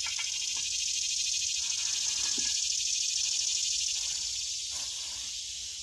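Air hissing steadily from a portable air tank's hose into a flat truck tire as it is aired up, over a continuous chorus of buzzing insects. The hiss is a little louder in the first few seconds, then eases off.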